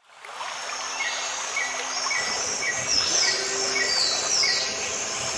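Tropical forest ambience of insects and birds: a steady high insect drone with a short chirp repeating about twice a second and a few falling calls in the middle, fading in at the start.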